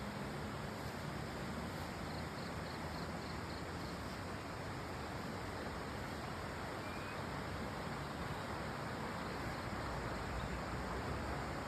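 Steady rushing of falling water, an even unbroken roar.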